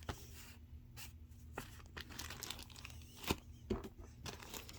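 Rustling and crinkling as play money is picked out of a basket by hand, with scattered small clicks and one sharper tap a little past halfway.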